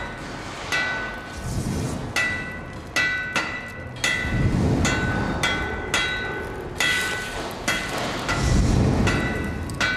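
Instrumental introduction of chiming bell tones, struck about once or twice a second. Each strike rings on at the same few high notes, and deep swells come in now and then underneath.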